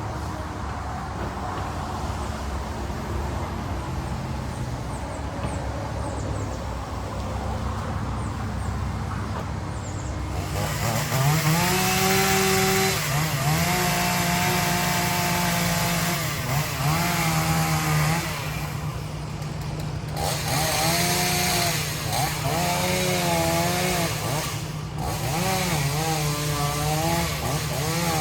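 Volvo EC140 excavator's diesel engine running low for about ten seconds, then throttling up under load, with a hydraulic whine that rises and falls over and over as the machine works.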